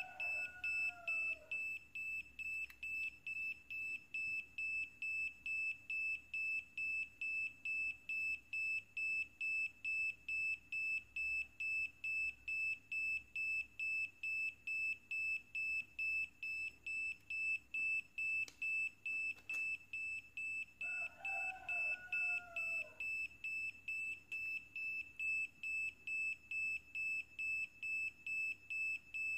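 Small piezo buzzer on a homemade NE555/4017 test board beeping one high tone, about two to three short beeps a second. It is pulsed by the NE555 astable oscillator, the clock that steps the 4017 through its LEDs, so the beeping shows the timer is oscillating.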